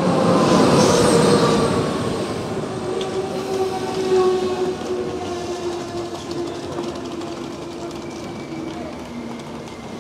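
Electric locomotive-hauled passenger train pulling into a station platform: a loud rush as the locomotive passes close by in the first two seconds, then the coaches rolling past with a whine that slowly falls in pitch as the train slows.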